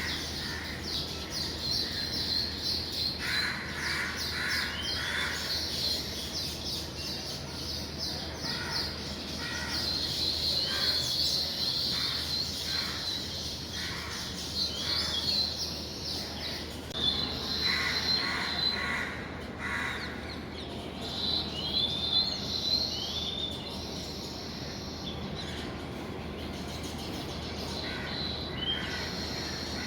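A colony of baya weavers chattering at their nests: many short high chirps overlapping without a break, with short rising notes now and then and bursts of harsher, lower calls.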